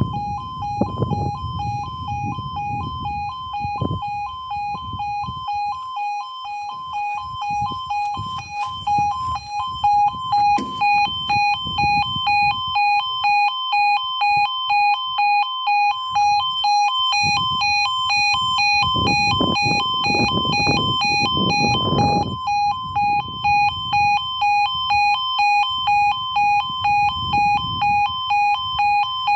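Level crossing yodel alarm: a rapid two-tone warble that sounds while the road lights show and the barriers are down. From about eleven seconds in it pulses on and off a little more than once a second. Patches of low rumbling noise lie underneath at times.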